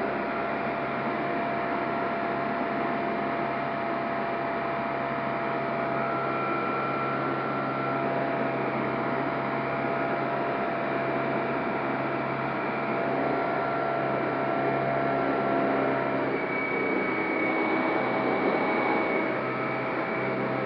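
Steady cockpit noise of an electric Sonex Xenos in powered flight: airflow rush over the canopy with the electric motor and propeller running, carrying a few steady whining tones.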